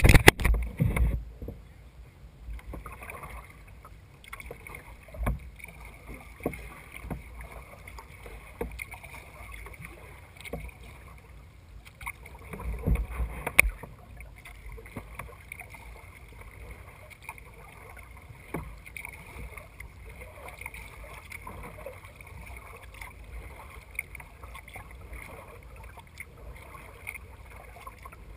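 Kayak being paddled on calm water: soft, irregular splashes and drips from the paddle blades, with loud knocks against the hull in the first second and again about 13 seconds in. A faint steady high-pitched hiss runs underneath.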